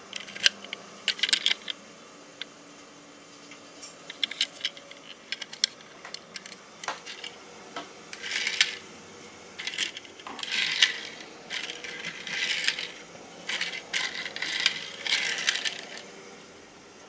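Die-cast metal toy buses clinking and scraping as they are handled and set down on a play mat. First a scatter of sharp metallic clicks, then from about eight seconds in a series of longer rattling scrapes.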